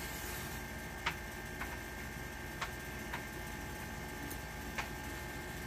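Quiet room tone with a steady low hum, broken by about five faint, sharp clicks spread through it: small taps from a matchbox and a candle in a drinking glass being handled while the candle is lit.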